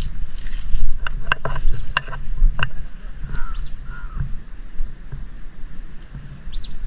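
Steady low wind rumble on the microphone, with several sharp clicks between about one and three seconds in. Short bird calls come a little after the middle and again near the end.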